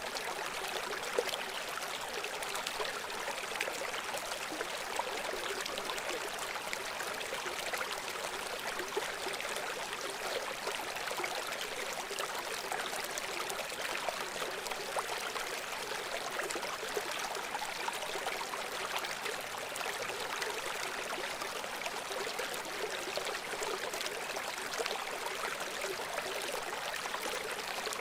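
River water flowing: a steady rush with constant small splashes and burbles.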